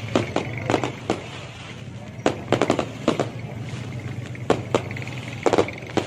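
Aerial fireworks bursting: irregular sharp bangs and pops. A quick run of them comes near the start, then a lull of about a second, then more clusters through the middle and near the end.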